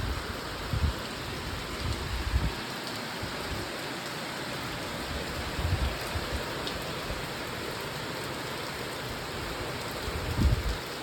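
Steady rain falling, an even hiss throughout, with a few brief low thumps now and then.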